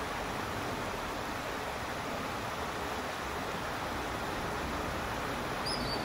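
Shallow, rocky stream running steadily as a constant rushing hiss. Near the end a single short, high bird call sounds, which fits a common sandpiper calling as it flies up.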